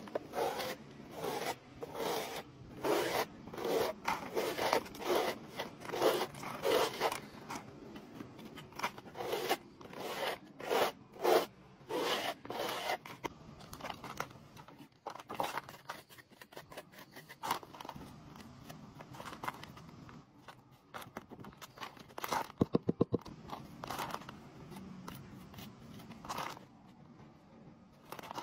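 Trowel spreading and scraping mortar onto a wall board in repeated strokes, about two a second for the first dozen seconds, then fewer and softer strokes. A quick run of light taps comes about twenty-three seconds in.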